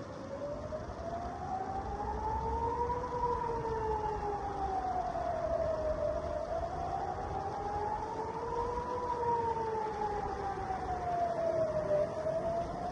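Civil-defence air-raid siren wailing, its pitch rising and falling slowly in cycles of about six seconds, with a fainter lower tone moving in step. A low rumble runs underneath, and it cuts off suddenly at the very end.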